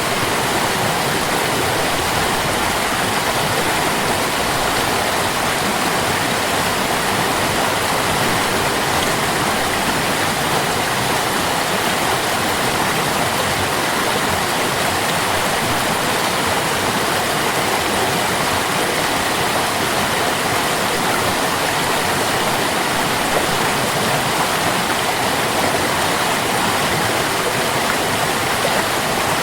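Stream water running in a steady, unbroken rush.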